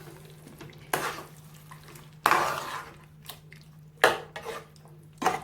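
A spoon scraping and knocking in a cooking pan, four strokes about a second apart, as chicken is stirred into cooked-down onions.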